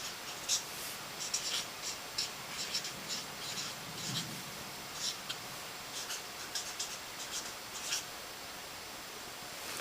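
Pen or marker scratching on paper in short, irregular strokes, as when writing a note.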